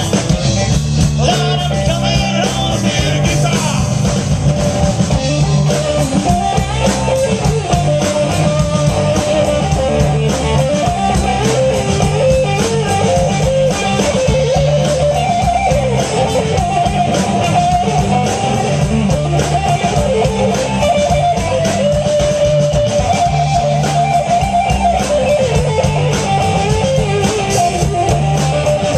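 Live rock band playing electric guitars and drums, loud and continuous with a steady beat.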